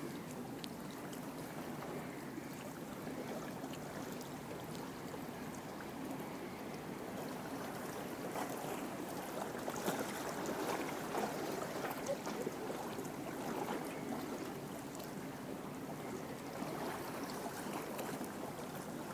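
Small sea waves lapping and washing at the shoreline, a steady watery wash that swells a little in the middle, with a few faint ticks.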